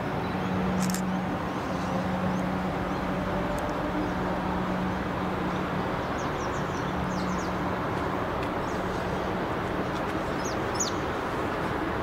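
Steady outdoor background noise with a low hum that fades out about three-quarters of the way through, and a bird chirping briefly a few times near the middle and end.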